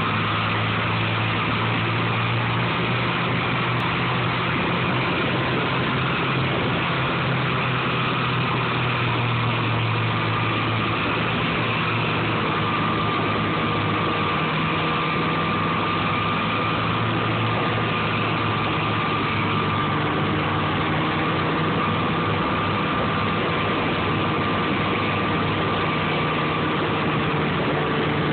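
Snowmobile engine running steadily at an even, unchanging pitch.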